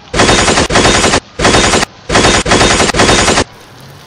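Machine-gun sound effect: rapid automatic fire in six short bursts of about half a second each, separated by brief gaps, ending about three and a half seconds in.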